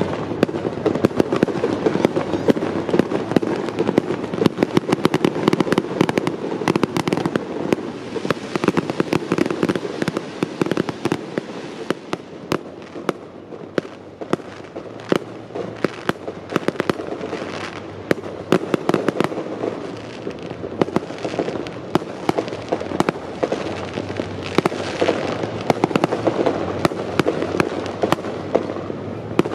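Fireworks display: a dense, continuous string of sharp bangs and crackling pops from aerial shells over a steady din. The bangs ease off a little in the middle and pick up again near the end.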